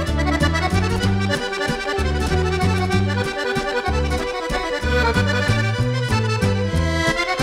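Dance band playing a waltz, the accordion to the fore over electric bass and drum kit, the bass stepping through its notes on the beat.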